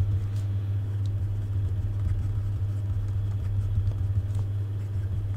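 A steady low hum, with faint scratches of a pen writing on paper.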